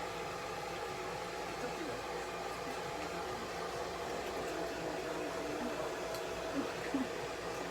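Hair dryer running steadily while a Chihuahua is blow-dried after a towel dry.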